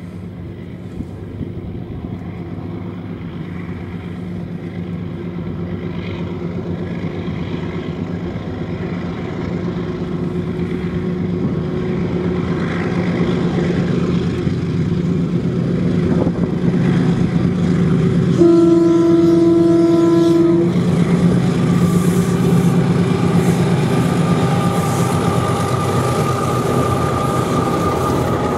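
Diesel locomotives hauling a freight train up a grade, their engines running hard and growing steadily louder as they approach. About two-thirds of the way through they sound one horn blast of about two seconds; after that the locomotives pass and the wagons' wheels clatter over the rails.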